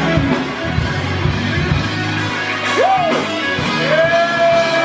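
Blues band playing, with guitar and bass, and a voice holding long sliding notes in the second half.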